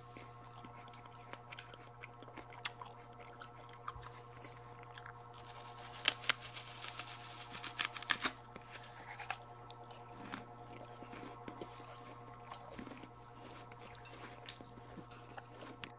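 Santol fruit being eaten close to the microphone: wet chewing and biting, with crisp snaps and tearing as the rind is pulled apart by hand. The loudest part is a cluster of crunches about six to eight seconds in.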